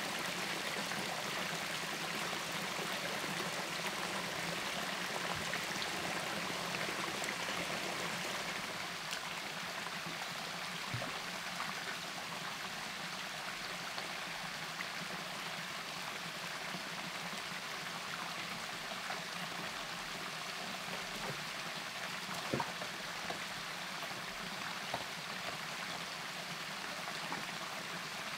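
Forest stream flowing steadily over rocks, with a small cascade, its rush dropping a little about a third of the way through. A few faint knocks, the sharpest about two-thirds through.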